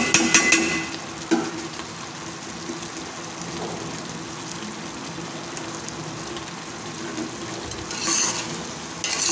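Rice, chicken and water bubbling and sizzling steadily in a steel pot as the water boils off before the pot is put on dum. A few sharp metal clinks of a ladle against the pot in the first second and one more knock just after, and a short louder burst near the end.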